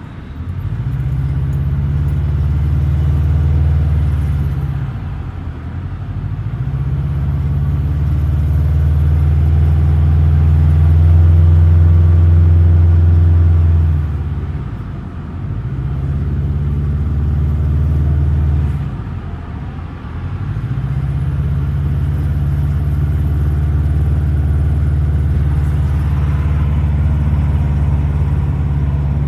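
Subaru Forester XT's turbocharged EJ255 flat-four engine running at a held engine speed, dropping away and picking back up about three times. It makes a noise that the owner can't place between an exhaust leak and turbo wastegate flutter.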